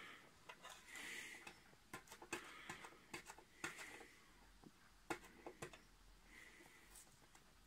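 Faint clicks and soft rustling as fingers pick at and peel adhesive tape off a telescope's plastic dust cap.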